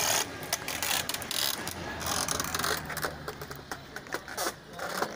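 Bullock-driven sugarcane crusher turning, its mechanism giving rapid, irregular clicks and clanks.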